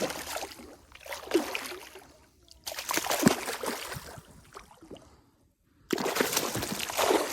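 Water splashing and sloshing in three bursts, one at the start, one about three seconds in and one about six seconds in, with a near-silent pause just before the last.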